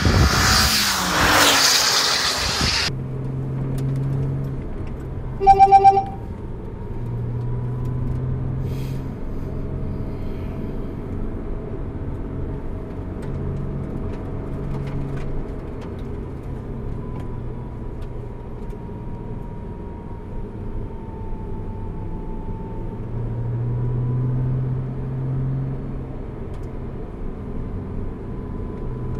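Engine drone heard from inside a Porsche Cayman's cabin while circulating at low track speed, its pitch rising and falling with the throttle. It opens with a few seconds of loud wind and passing-car rush, and a short electronic beep sounds about six seconds in.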